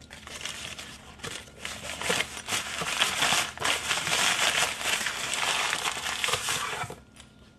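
Brown paper crinkling and rustling as hands fold and wrap it around a block of cheese, building up over the first few seconds and stopping about seven seconds in.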